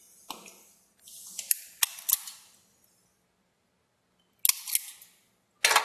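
Hand wire strippers snipping a wire and stripping its insulation: a series of sharp metallic clicks and snaps, three close together about a second and a half in, then two more and a last one near the end.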